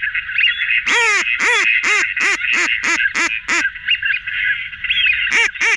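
Duck calls played from an electronic caller to lure ducks: a run of about eight loud quacks that speed up, then a second run starting about five seconds in, over a steady high background chatter.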